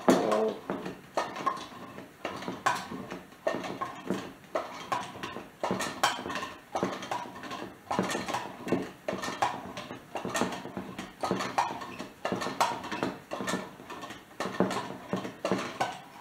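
1915 hand-cranked glass-jar butter churn being turned to churn cream, clattering in a steady rhythm of about two knocks a second.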